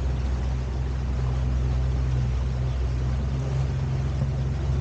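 Small electric tour boat under way: a steady low hum with an even hiss above it, unchanging throughout.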